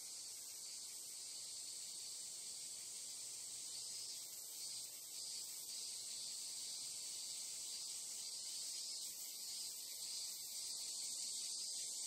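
Chorus of Japanese singing insects: a steady, high-pitched insect drone, with fainter, higher pulsing that comes and goes a few times.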